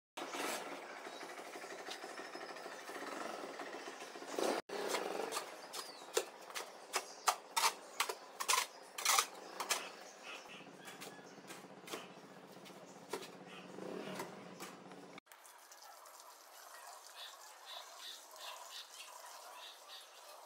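Shovel scraping and knocking on a concrete floor while turning a dry heap of sand and cement, with a run of sharp scrapes and clicks through the middle. Near the end, quieter running water as a hose pours into a hollow in the mortar pile.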